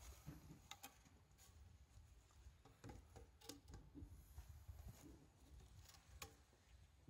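Faint scattered knocks and clicks of wood being handled as a wooden board is laid across stacked shiitake logs, over a low rumble.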